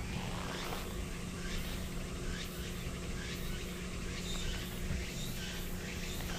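Outdoor background sound: a steady low hum under a run of short, quickly repeated high chirps.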